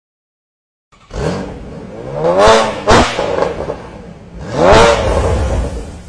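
BMW i8's turbocharged 1.5-litre three-cylinder engine revving through a Fi Exhaust valved catback and catless downpipe. It starts about a second in and climbs in two rev blips, with a sharp pop right after the first.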